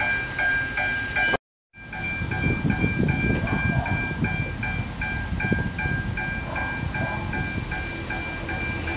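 Electric commuter train at a station, its low rumble swelling and fading, under an electronic warning beep that pulses about three times a second. The sound cuts out completely for a moment about a second and a half in.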